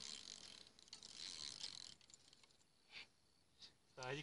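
Fishing reel being cranked with a soft ratcheting whirr, in two short spells, then a couple of single clicks.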